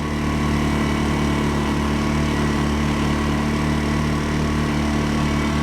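A vehicle engine idling steadily, a constant low hum made of several held tones.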